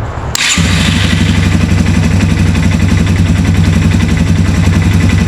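Yamaha TTR 225's air-cooled single-cylinder four-stroke engine catching about half a second in and then idling steadily with a fast, even beat, started to circulate freshly changed oil.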